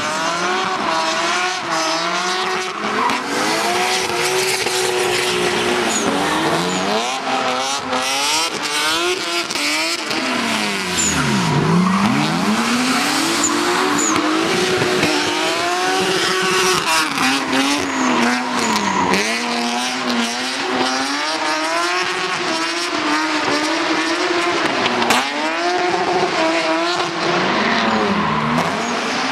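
BMW E36 drift car's engine revving up and down continually through its slides, with tyre squeal from the spinning rear tyres. About eleven seconds in the revs drop deeply and climb again.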